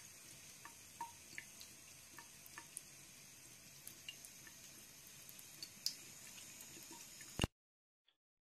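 Faint trickle of a thin stream of water from a bathroom faucet into a sink, with small irregular drips and splashes. It stops abruptly near the end.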